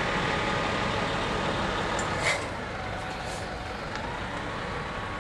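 Large tour coach's diesel engine running as the bus moves slowly past, with a brief sharp hiss a little over two seconds in, after which the sound drops to a quieter, steadier background.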